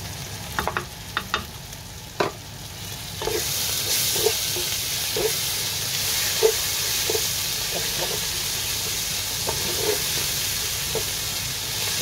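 Onion-tomato biryani masala, with the masala powder just added, frying in a non-stick pot. A few sharp knocks come in the first two seconds. From about three seconds in there is a steady sizzle, and a spatula scrapes through the mixture about once a second.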